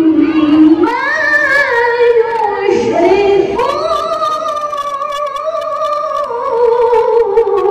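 A woman reciting the Quran in the melodic qiraah (tilawah) style into a microphone: long held, wavering notes that glide between pitches, with a short break near the middle before a higher phrase.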